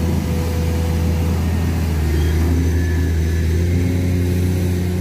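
Komatsu PC210 hydraulic excavator's six-cylinder diesel engine running steadily, heard close up as an even low hum.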